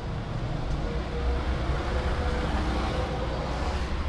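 Road traffic: a vehicle going past with a steady low rumble, its noise swelling about three seconds in.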